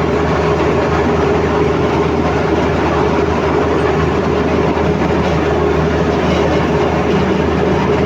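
Komatsu D85ESS crawler bulldozer working: its diesel engine runs steadily under the clatter of the steel tracks.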